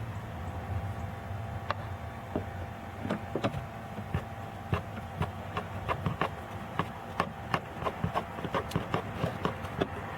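A series of light, irregular clicks and taps from hand work on a car door's interior trim panel and its fasteners, starting about two seconds in and coming faster toward the end, over a steady low background hum.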